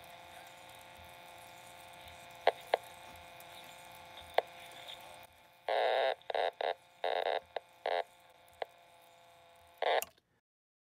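Vintage 1960s Valiant 4-transistor reel-to-reel tape player playing through its small speaker: a steady hum with a few sharp crackles. Then, as the volume slider is worked, loud bursts of sound cut in and out abruptly. This is the static and dropout that the owner traces to a dirty volume potentiometer.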